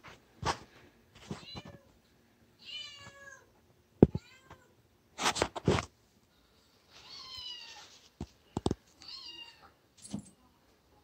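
A cat meowing repeatedly, about five separate calls that bend in pitch. A few sharp knocks or clicks fall between the calls, the loudest about four seconds in.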